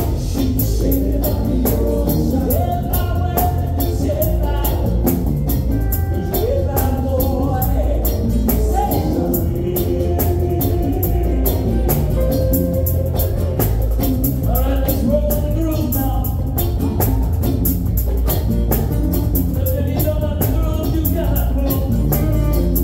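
Live amplified band playing a reggae song: drum kit, electric bass, electric guitars and keyboard keeping a steady beat, with singing over it.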